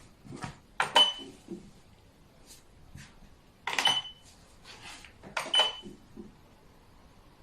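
Xiangqi pieces clacked down hard on the board: three loud sharp clacks, each with a brief ring, at about one, four and five and a half seconds in, with fainter clicks of pieces being handled between them.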